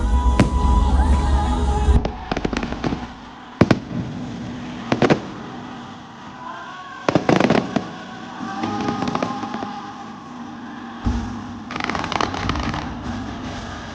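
Fireworks show: sharp bangs of bursting shells every second or two, some in quick clusters, over the show's music soundtrack.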